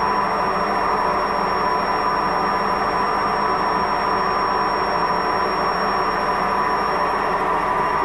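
Koenic front-loading washing machine running with its drum turning on worn drum bearings: a steady, loud mechanical noise with a constant whine on top, the typical sound of bearing damage.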